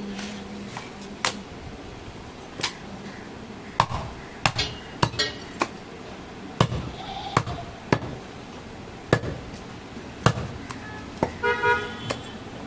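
Heavy butcher's knife chopping through a goat carcass on a wooden chopping block: a dozen or so sharp chops at an uneven pace, some in quick pairs.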